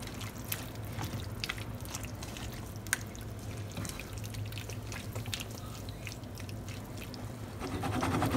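A spatula stirring diced tomatoes, onions and green peppers in a pan: wet squelching and sloshing of the juicy vegetables, with scattered clicks of the spatula against the pan, the sharpest about three seconds in.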